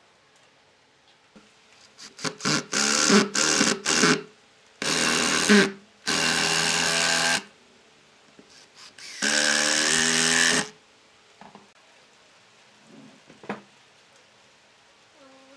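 Cordless power driver driving long wood screws into solid wood, run in bursts: a string of short trigger pulses, then three longer runs of about a second each.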